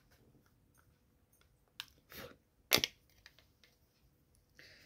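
A makeup brush and small plastic eyeshadow palette being handled: a few light taps and clicks, with one sharp click a little past halfway.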